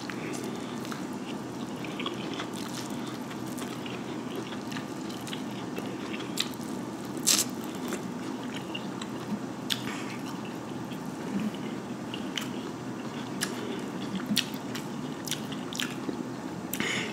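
A person biting and chewing corn on the cob: wet, squishy mouth sounds with scattered sharp crunchy clicks, the loudest about seven seconds in.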